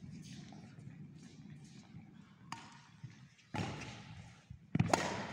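Badminton rally: sharp racket strikes and footfalls on the sports-hall floor, one about two and a half seconds in and louder ones near the end, each ringing on in the hall's echo.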